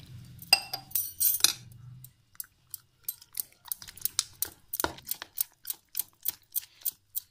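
Milk poured from a steel tumbler into a bowl of flour, then a steel spoon beating the thick wheat-flour batter in a plastic bowl, with short clicks of spoon against bowl about four to five times a second.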